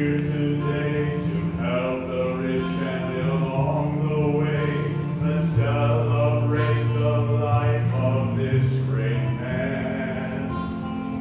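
A small group of men singing together in harmony, holding long notes with a low bass line beneath.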